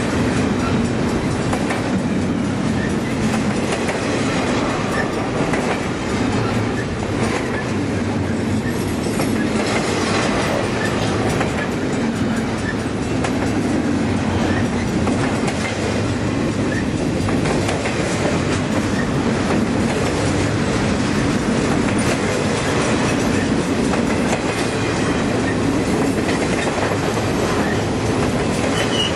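Freight train cars rolling past, a steady rumble with the wheels clacking over rail joints.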